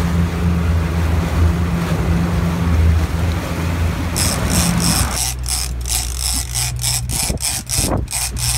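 Boat engine running over the rushing, churning wake. About five seconds in this gives way to a big-game fishing reel being cranked: a rhythmic rasping of about three strokes a second over a lower, steady engine note.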